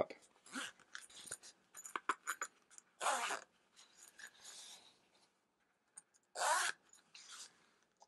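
Zipper on a neoprene cable sleeve being pulled shut over bundled cables, quiet, with small clicks and handling rustle of the foam sleeve; two short louder rasps, one about three seconds in and one past six seconds.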